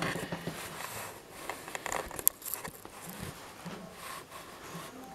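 Handling noise: rustling and scraping with light knocks as the camera and things on the table are moved about, and one sharp click a little over two seconds in.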